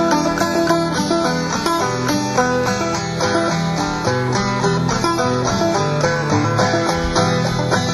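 Clawhammer banjo and acoustic guitar playing an instrumental introduction in an old-time, bluegrass-like style, with a steady rhythm of plucked notes.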